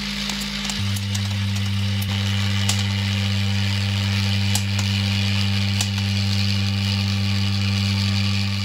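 3D-printed vibratory bowl feeder running: a steady, loud electric hum from its vibrating drive, its low tone shifting slightly about a second in, with a few light clicks of steel hex nuts rattling in the bowl.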